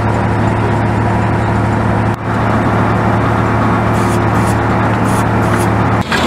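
URB-2A2 hydraulic drilling rig running under test as its drill rod turns in the hole: a steady engine and hydraulic drive drone with a constant hum. The drone breaks off abruptly about two seconds in, resumes, and changes again near the end.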